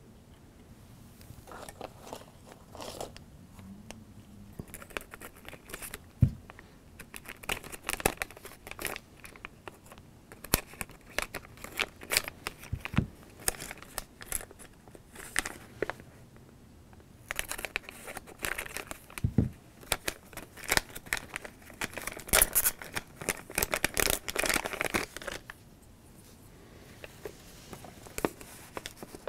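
Crinkling and rustling of a plastic Lego Minifigures blind-bag packet being handled and opened, with quick crackly clicks and a few soft knocks. It is busiest in the middle and quieter near the start and end.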